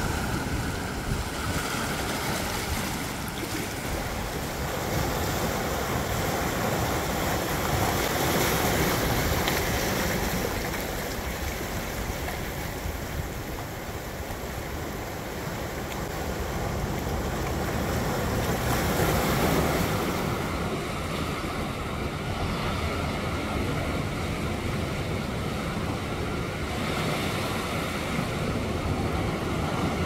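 Small waves surging in over a rocky shore and washing back among the rocks: a continuous rush of surf that swells louder about eight to ten seconds in and again near twenty seconds.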